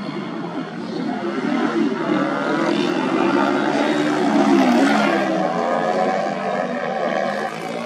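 Supermoto racing motorcycle engines revving hard, their pitch rising and falling with throttle and gear changes as the bikes pass; loudest around the middle.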